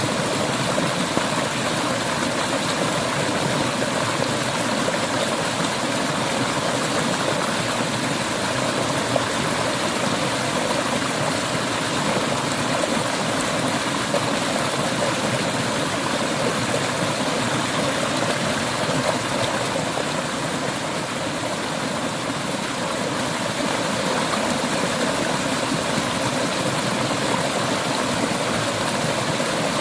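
Clear mountain river water flowing and rushing over stones, a steady, even rushing sound.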